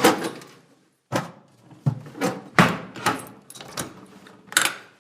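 A series of sharp knocks and clatters, about nine in five seconds at uneven spacing, each with a short ringing tail.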